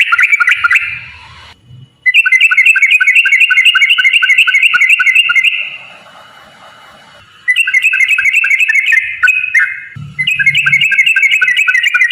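Yellow-vented bulbul (trucuk) singing its long rapid trill, bouts of fast, bubbly repeated notes, about five or six a second. The bouts break off and restart three times.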